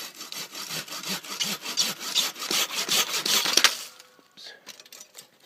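Hand saw cutting through a thick woody grapevine stem with rapid back-and-forth strokes. The strokes stop about four seconds in as the vine is severed.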